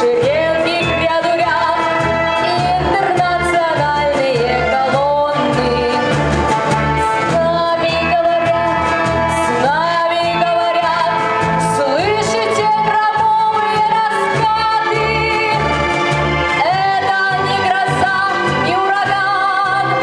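A woman singing a slow, sustained melody with vibrato into a handheld microphone, over an instrumental accompaniment with a steady pulsing bass.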